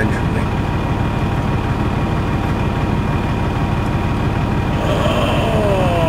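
Diesel semi-truck engines running steadily, with a falling whine starting about five seconds in, as a semi stuck in a snowbank works to get free.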